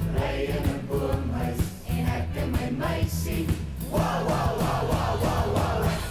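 Background music: a song sung by several voices over a steady bass line and beat, with the voices massing more thickly about two-thirds of the way through.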